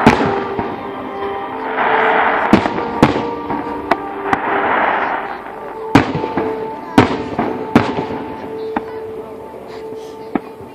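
Aerial firework shells bursting overhead: about half a dozen sharp bangs spaced irregularly, with swells of hissing crackle between them, the show getting quieter near the end.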